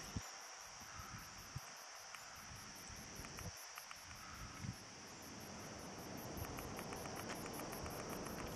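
A steady outdoor chorus of insects: a continuous high buzz with a fast, even pulsing above it. A few soft low knocks come through it, the loudest just after the start and about a second and a half in.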